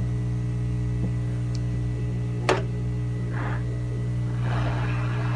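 Steady low electrical hum with a single sharp click about halfway through. Near the end a soft rushing hiss rises and holds: airflow from a hot air rework gun starting up to heat the chip for removal.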